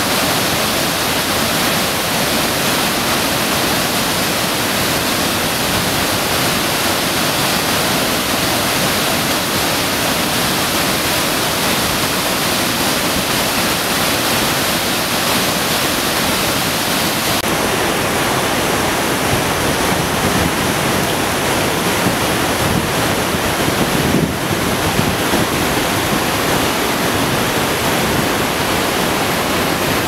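Mountain waterfall plunging into a rock pool: a loud, steady rush of falling water. A little past halfway the high hiss thins slightly.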